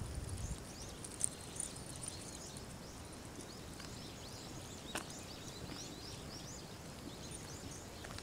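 Small birds chirping, many short high calls scattered over a faint outdoor hush, with a single sharp click about five seconds in.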